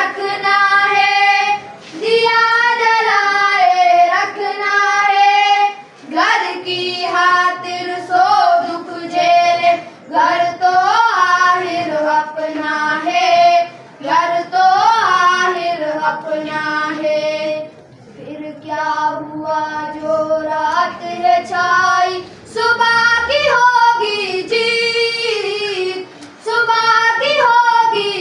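Boys singing an Urdu patriotic song together, without instruments, in sung phrases with short breaks between them.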